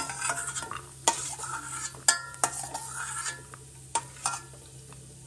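Steel ladle scraping and clinking against a stainless steel kadai while cashews are scooped out of hot coconut oil, with a faint sizzle underneath. About half a dozen sharp metallic clinks, each with a brief ring.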